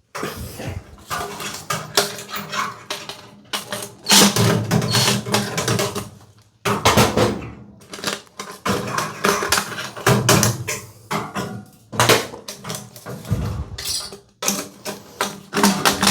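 Dryer vent duct being handled and worked off or on: irregular metallic crinkling and clattering with short pauses.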